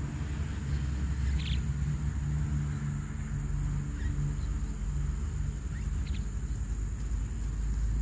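A low, steady rumble, with a few short, high bird chirps about one and a half, four and six seconds in.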